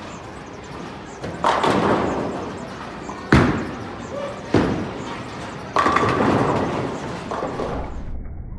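Bowling alley sounds: a Storm IQ Tour Pearl bowling ball thuds onto the lane and rolls, then strikes the pins with a long clattering crash about six seconds in, over a steady hubbub of voices and knocks from other lanes.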